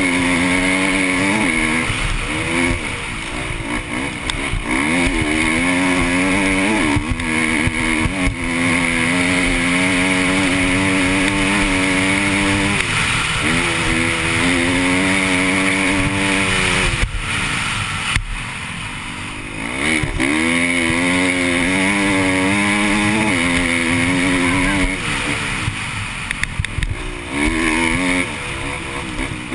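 KTM dirt bike's engine run hard on a sandy trail. The engine note climbs and falls over and over with gear changes and throttle, easing off several times.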